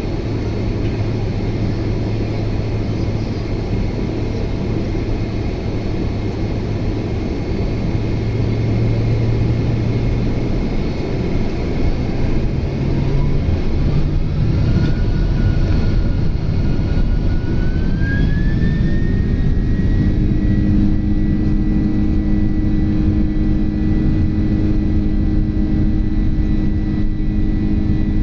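Boeing 767's GE CF6 turbofan engines spooling up over a low rumble: a whine rises in pitch in two steps, then holds steady as the engines settle at high thrust, growing louder as it does.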